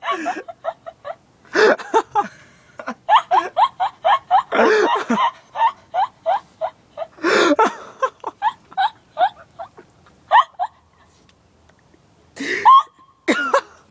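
A young woman's peculiar laugh: a long run of short, high, evenly spaced pulses about three a second, broken by several louder, fuller bursts of laughter, with a brief pause near the end before it starts again.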